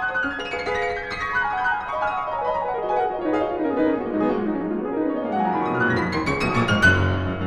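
Piano music: a fast run of notes sweeping steadily down in pitch for about four seconds, then climbing back up, with a low bass note sounding near the end.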